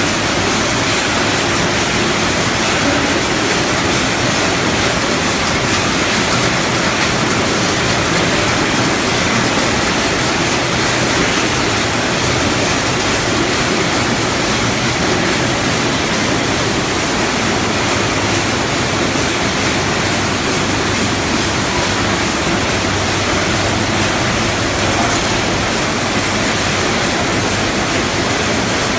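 Loud, steady, even noise of poultry processing line machinery: overhead shackle conveyors and rotary processing machines, running without pause.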